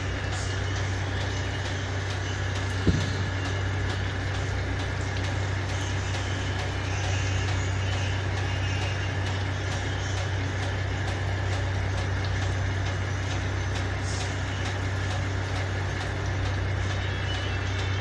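Vegetable fritters sizzling in hot oil in a wok, over a steady low engine hum from the ship's engines. A single sharp click about three seconds in.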